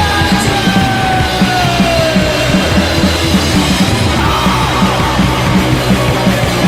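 Punk rock band playing loud, with a steady drum beat and a held note sliding slowly down in pitch over the first couple of seconds.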